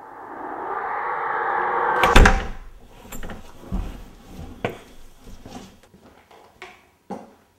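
A front door slammed shut about two seconds in: a loud bang with a deep thump, after a rising swell of noise that builds for about two seconds. Several lighter knocks and clicks follow.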